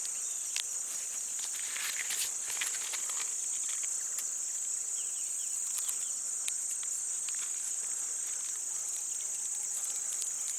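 Steady, high-pitched chorus of insects droning without a break, with faint scattered clicks and rustles of handling.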